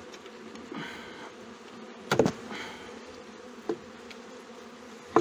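Honeybee colony buzzing in an opened hive, a steady hum, with a few sharp knocks, the loudest about two seconds in.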